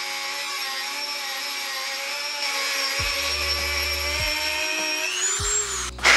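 Dremel rotary tool with a sanding drum running at a steady high whine while grinding metal from the inside of a gauge housing to enlarge it. Near the end the whine swoops up in pitch and stops, followed by a sharp knock.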